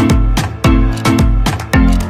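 Background music with a steady beat and a deep, sliding bass line, about two beats a second.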